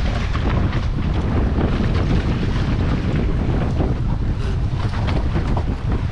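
Strong wind buffeting the microphone in a steady low rumble, over choppy sea washing against a small open fishing boat.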